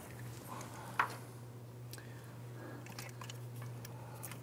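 Quiet handling noises of hands moving parts and tools, with one sharper click about a second in, over a steady low hum.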